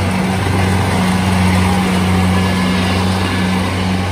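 Kubota DC70 combine harvester's diesel engine running steadily under load as it cuts standing rice, a loud constant low hum with the churn of the cutting and threshing machinery over it.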